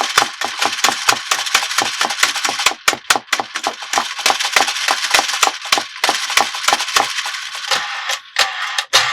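Rapid, irregular clicking and clattering of hard plastic toy parts being handled, several clicks a second. Near the end a toy's electronic tune begins under the clicks.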